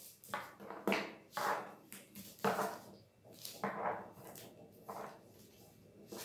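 Paper rustling and sliding on a tabletop as it is folded and its creases pressed down by hand, in a series of short, irregular crinkly swishes.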